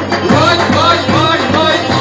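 Turkish folk dance music: a steady drum beat under a melody of short, quickly repeated rising-and-falling phrases.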